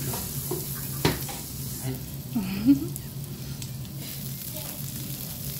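Kobe beef sizzling on a teppanyaki iron griddle: a steady frying hiss. A sharp click comes about a second in, and a short sliding sound comes about halfway.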